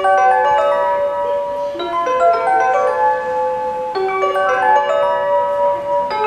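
Station platform melody played over the public-address speakers: a bright electronic chime tune of bell-like notes, like a glockenspiel.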